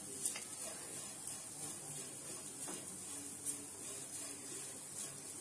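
Soft sizzling of a dry cabbage-and-onion filling frying in a non-stick pan, with the scrape of a wooden spatula stirring it and a few light taps.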